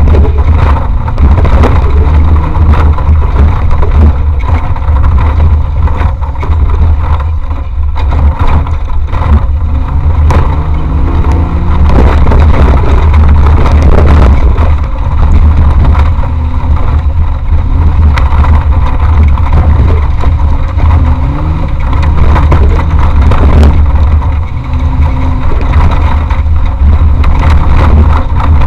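Off-road race vehicle's engine running hard with a heavy low rumble, its revs rising and falling several times, with frequent short knocks throughout.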